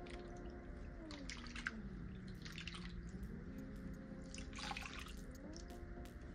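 Bundle of hair extensions swished and dipped in soapy water in a shampoo bowl: splashing and dripping in short bouts, about a second and a half in, near the middle and near the end.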